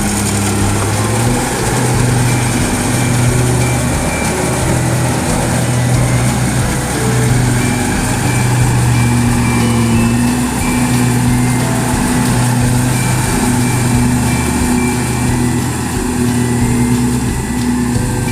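Rice combine harvester's engine running steadily under load, its pitch wavering a little.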